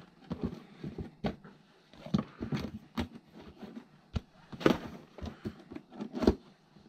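Packaging being handled: plastic-wrapped gasket sets and a cardboard box rustling and tapping against a wooden workbench in irregular clicks and knocks. Two louder knocks come about four and a half and six seconds in, the second as the box is set down flat.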